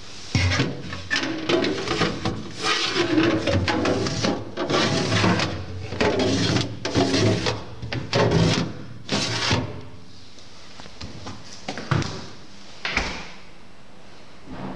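Fridge-freezer being handled: plastic drawers and door parts clatter and rattle for several seconds, then two heavy thuds near the end as the doors are shut.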